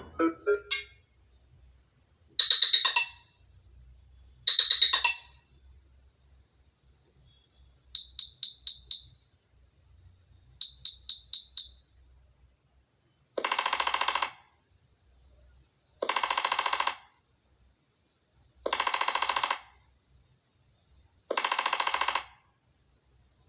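Nothing phone ringtones playing one after another, each short electronic pattern repeated. Two bright chiming bursts, then a quick run of high beeps played twice, then a buzzy pulsing tone four times at even intervals.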